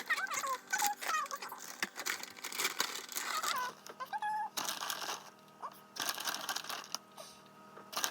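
Plastic packaging crinkling and rustling in a few bursts in the second half, as when handling a bag of shredded cheese. Faint voice-like sounds come earlier, over a steady low hum.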